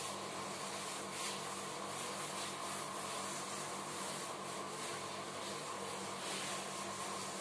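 Chalkboard duster rubbing across a chalkboard, steadily wiping off chalk writing in continuous strokes.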